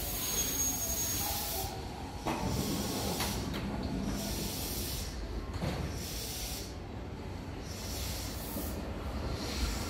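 Trackside hiss and low rumble with a few faint knocks, from an electric commuter train still far off and approaching along the tracks.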